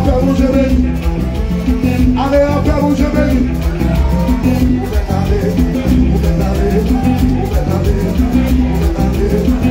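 Upbeat music with a steady, repeating bass beat and percussion. A voice comes in briefly twice in the first few seconds.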